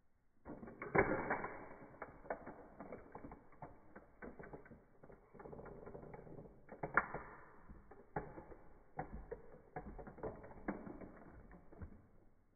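Toy model car creaking and cracking under the pressing heel of a shoe, a run of crackles and snaps as its body gives way. The sharpest snaps come about a second in and again near seven seconds.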